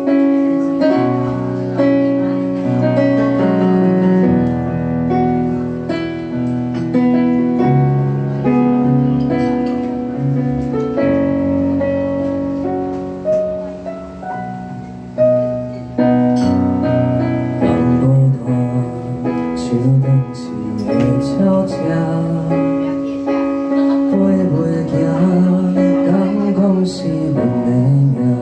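Korg stage keyboard played with a piano sound: a piano passage of chords under a melody. A man's singing voice comes in near the end.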